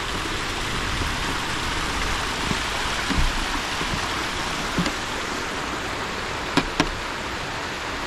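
Small mountain stream cascading down a rock face, a steady rushing of water, with a few light knocks about halfway through and near the end.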